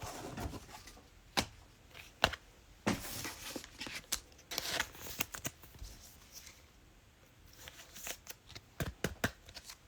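Trading cards being handled and shuffled through by hand: scattered light slaps, ticks and short slides of card stock, with a brief lull partway through.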